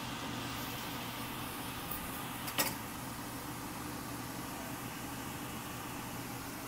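Kitchen range hood blower running with a steady hum, over chicken pieces sizzling in oil in a stainless steel pan. A single sharp knock about two and a half seconds in.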